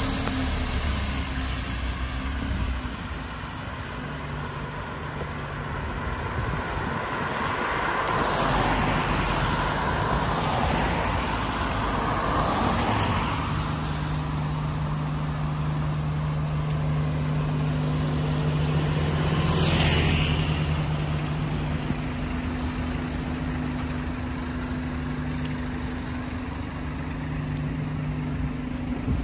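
Road traffic on a wet street: a steady engine hum, with vehicles swishing past on wet tarmac. The loudest pass comes about twenty seconds in.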